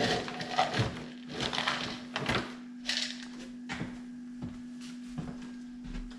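A hand rummaging in a resealable plastic bag of pet food, the plastic crinkling and rustling, busiest in the first two and a half seconds, then a few scattered crackles and ticks. A steady low hum runs underneath.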